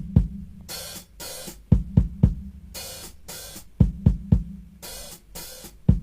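Post-punk drum intro: a repeating pattern of paired bass-drum hits and paired open hi-hat or cymbal washes, coming round about every two seconds over a low held bass note.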